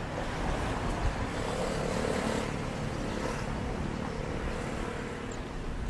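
Street traffic: a motor vehicle drives past with a steady engine drone, loudest about two seconds in, over a continuous traffic hum.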